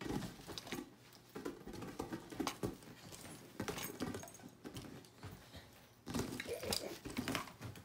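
Capuchin monkey scrambling over a large inflatable ball on a bed: irregular thumps, taps and scuffs of hands and feet on the ball and bedding, busiest from about six seconds in.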